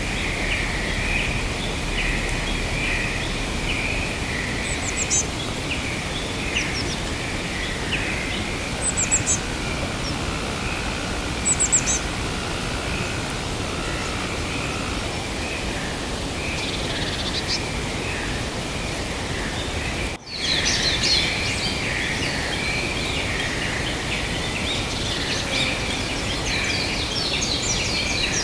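Natural outdoor ambience of birds chirping over a steady background chorus and hiss, with short high chirps now and then. The sound drops out for a moment about two-thirds of the way through, after which the bird chirping becomes busier.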